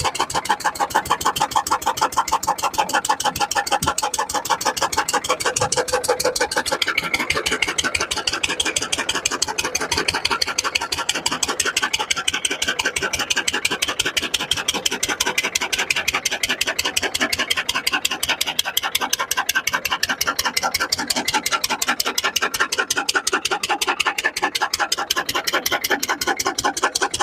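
Single-cylinder Lister-type diesel engine running at a steady speed with an even, rapid exhaust beat as it drives a tractor-mounted rotavator.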